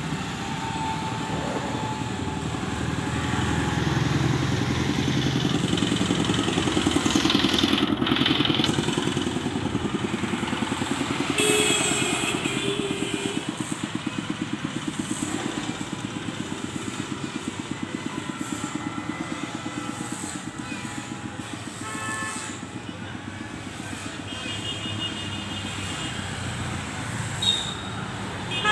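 Road traffic passing close by: motor vehicles, motorcycles among them, with a rumble that swells and fades as they go past. A regular engine throb runs through the middle, and short high-pitched tones come in near the middle and near the end.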